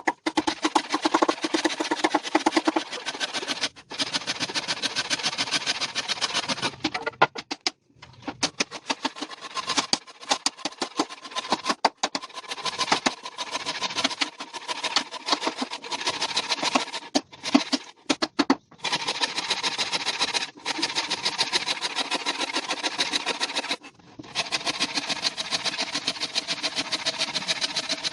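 An electric woodworking power tool running with a rapid, buzzing rhythm, stopping and restarting briefly several times as it works the wood.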